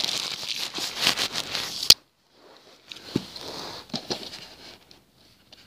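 Plastic packaging crinkling and rustling as it is pulled away from a DVD box set. It ends in a sharp click about two seconds in, followed by quieter rustling and light knocks as the case is handled.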